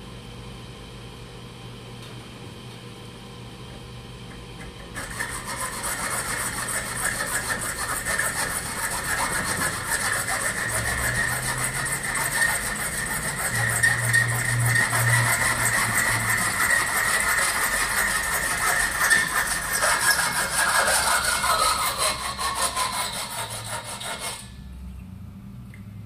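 Hacksaw cutting through a small brass part clamped in a bench vise: quick back-and-forth strokes starting about five seconds in and stopping abruptly near the end. A ringing tone falls in pitch over the last few seconds of sawing.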